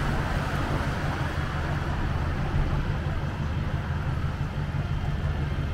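Steady street traffic with a constant low engine hum under the noise of passing vehicles.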